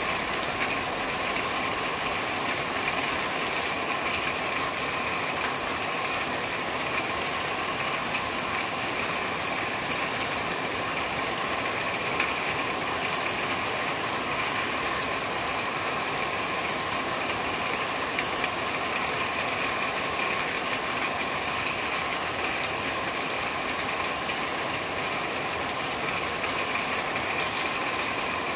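Steady rain falling on a corrugated metal roof: a dense, even patter of drops on the sheet metal, never letting up.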